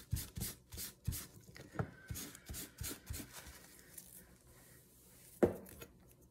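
A paper towel rustling and crumpling as sticky fingers are wiped, with light taps, dying away after about three and a half seconds. One sharp knock about five and a half seconds in is the loudest sound.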